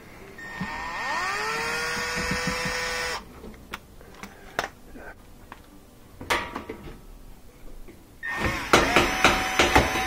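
Milwaukee cordless drill/driver backing out a Phillips screw: the motor spins up with a rising whine about a second in, runs steadily for about two seconds and stops. Light clicks and taps follow, and near the end the drill runs again among rattling knocks.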